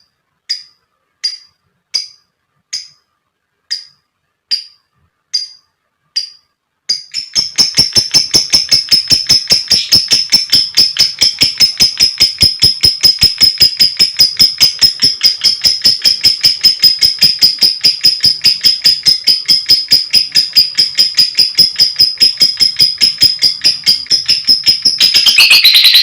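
Lovebird calling: sharp single high chirps at an even pace, about one every 0.7 seconds, then from about seven seconds in a long, rapid, continuous chattering trill (the 'ngekek panjang') that runs on until louder, lower calls come in near the end.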